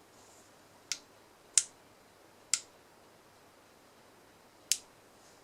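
Four sharp clicks of the push buttons on a CXG E60W soldering iron's control unit, pressed one at a time while a password is keyed into its menu. The clicks are uneven in spacing, with a longer gap before the last.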